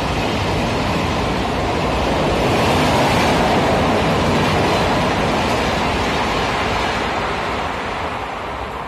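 Passenger coaches of an express train running past at speed, a steady rushing noise of wheels on rail and moving air. It grows loudest about three seconds in and fades near the end as the last coach goes by.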